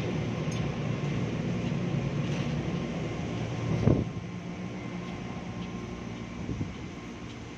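Electric commuter train at a station platform, a steady hum with a brief loud thump about four seconds in, after which the sound slowly gets quieter.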